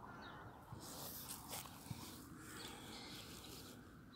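Faint open-air background with a few soft rustles and taps, and faint high-pitched animal calls.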